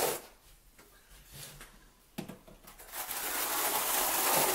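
A notched trowel scraping steadily through thinset mortar on a shower floor, combing it into ridges, coming in about three seconds in after a short knock.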